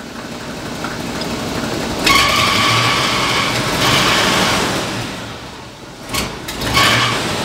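Ford F-250's engine being revved: it climbs steadily, jumps up sharply about two seconds in and holds near 2,500 rpm for a couple of seconds with a steady whine, then eases back toward idle, followed by two short blips of the throttle near the end.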